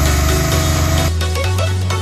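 Background music: an electronic track with a heavy bass line. The dense upper layers drop out about a second in, leaving the bass and a beat.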